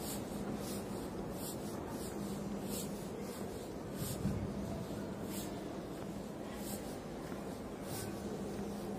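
Footsteps and the swish of clothing from someone walking with the camera, a short soft scuff recurring about once a second, over the steady low hum of a large hall.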